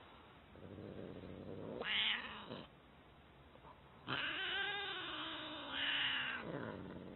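Tabby house cat yowling: a low, drawn-out moan that swells into a short cry about two seconds in, then, after a pause, a longer yowl from about four seconds in that rises and falls in pitch.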